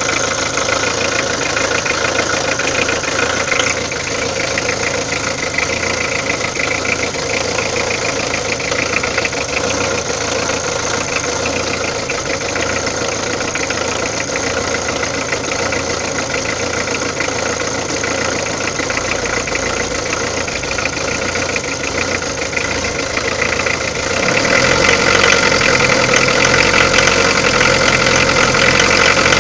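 Peugeot diesel engine idling with a fast, even clatter: the engine noise being diagnosed as a fault. It gets louder about five seconds before the end.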